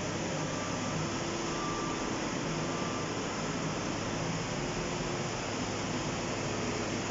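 Steady rush of fast-flowing muddy floodwater, mixed with the running of a JCB tracked excavator's engine, with faint level tones that come and go.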